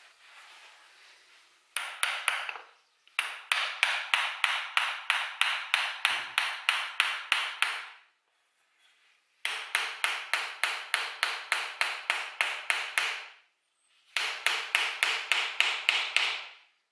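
A white-faced mallet tapping rapidly on a wooden hammer handle to seat the 1045 steel hammer head on it. The blows come about four a second in four runs, with short pauses between them, and each blow has a short ringing note.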